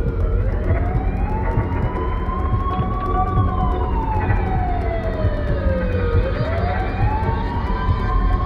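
Siren wailing: a tone that rises slowly for about three seconds, falls for about three, then rises again, over a steady low rumble.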